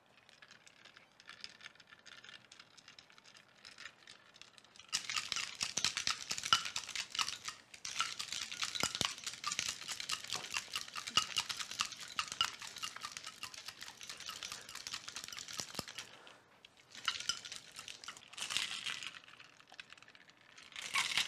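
Ice cubes rattling and clinking inside a stainless steel cocktail shaker being shaken hard. Light clinking for the first few seconds, then vigorous shaking from about five seconds in for some ten seconds, and a second, shorter round of shaking near the end.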